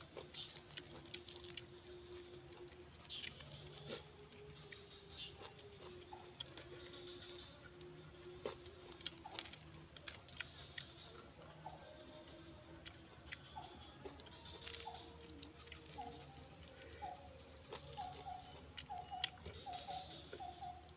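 Steady high-pitched chorus of crickets or other insects, with faint scattered clicks. Near the end a faint series of short repeated notes, about two a second, joins in.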